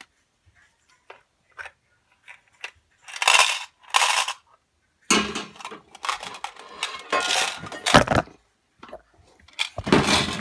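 M&M candies clattering and rattling against hard plastic as they are dropped and shaken into a container. Two short bursts come first, then a longer stretch of rattling, with a loud burst near the end.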